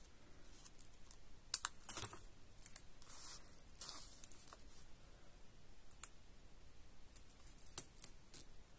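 Scissors snipping a thin craft strip, the sharpest snips about a second and a half and two seconds in, followed by scattered small clicks and light paper rustling as the strip is handled and pressed onto a card frame.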